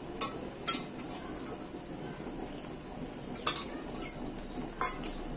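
Thick gourd-and-potato curry sizzling in a metal kadai as hot water is ladled in, with a metal ladle clinking sharply against the pan a few times.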